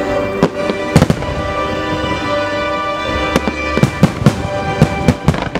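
Aerial firework shells bursting in a string of sharp bangs, a couple about a second in and a rapid cluster in the second half, over music playing throughout.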